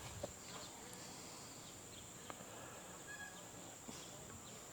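Faint steady high-pitched insect chorus, with a few soft ticks and a faint short chirp about three seconds in.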